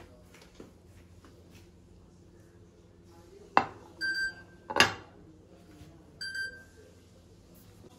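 Two sharp knocks about a second apart as a plate is set down on a glass-topped table. Between and after them, two short high electronic beeps sound about two seconds apart.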